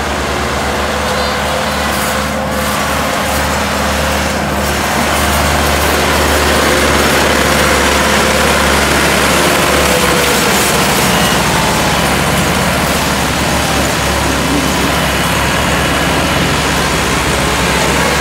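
Massey Ferguson tractor diesel engines running steadily, a low even throb that holds level throughout.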